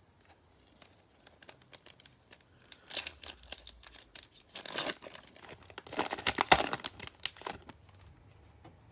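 Trading-card pack wrapper being torn open and crinkled by hand: scattered crackles that grow into louder bursts of crinkling in the middle, then die away near the end.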